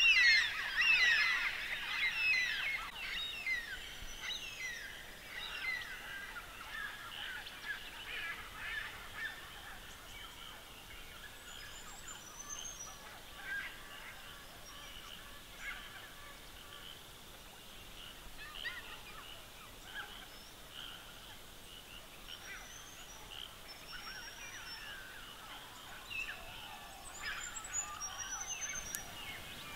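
A flock of birds calling: many overlapping quick squawks and chirps, loudest at the start and then thinning out, with a few high thin chirps later on and a brief busier spell near the end.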